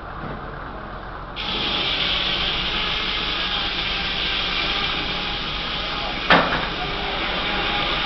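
Large steam-driven circular headsaw cutting through a log on the sawmill carriage: a steady high rushing sound of the blade in the wood starts suddenly about a second and a half in and runs on. There is one sharp knock a little after six seconds.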